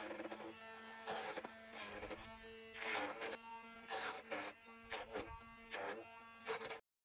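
Handheld stick blender running in a bowl of thick mash with sugar: a steady motor hum with repeated brief louder surges as the blade head works through the mash. It cuts off abruptly near the end.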